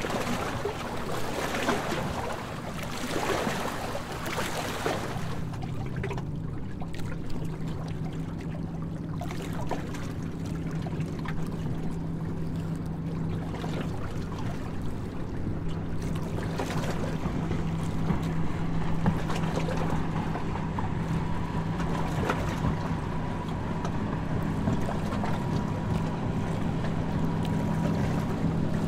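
Tour boat's engine running with a steady low drone, under wind and water noise that is strongest in the first five seconds.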